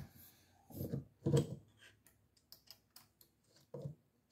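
Small metal clicks and knocks from a scope mount being fitted to an AR-15 rail while its cross-bolt screws are loosened with a screwdriver. There are two soft knocks about a second in, then a run of light ticks, then another knock near the end.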